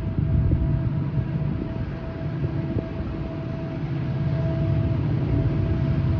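Diesel locomotives of a train running, a steady low rumble with a steady whine above it.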